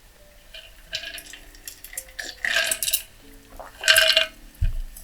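Mechanical keyboard typing on a Lucky65 v2 with stock, unlubed HMX Ziwei switches: quick runs of keystrokes about one, two and a half and four seconds in, with a low thump near the end. Soft background music plays underneath.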